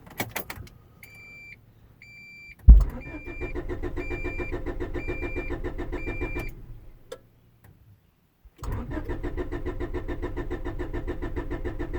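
1992 Honda Accord LX's starter cranking the engine in two long tries without it ever firing: a no-start that comes on in cold or rainy weather. A loud clunk as the starter engages begins the first try, and a warning chime beeps through the first several seconds.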